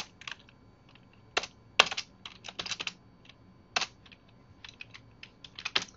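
Computer keyboard being typed on: irregular key clicks, some single and some in quick runs of several keystrokes, with short pauses between.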